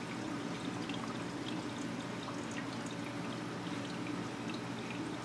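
Steady trickle and splash of water circulating through a reef aquarium system, with faint scattered drips.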